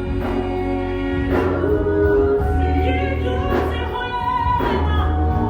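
Music: a song with singing over sustained chords and a steady bass line.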